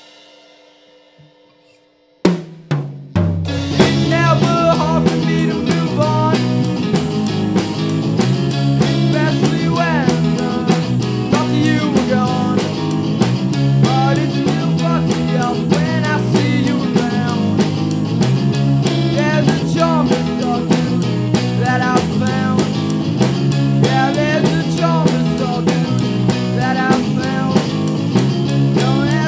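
Rock band instrumental break. A chord fades out, the drum kit comes back in with a few hits about two seconds in, then drums, bass and electric guitar play a steady beat while a lead electric guitar plays a solo with bent notes.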